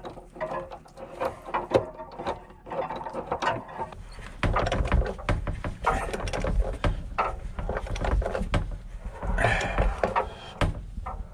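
Socket ratchet clicking in repeated strokes as a new anode rod is screwed into the top of a hot water tank and tightened down. The clicking grows louder and busier about four seconds in.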